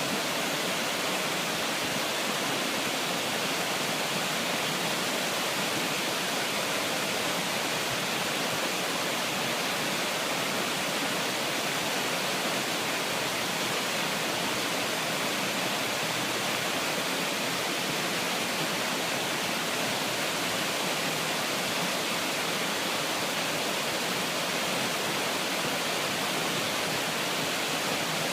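A steady, even rushing noise that never changes in level, with no distinct sounds standing out.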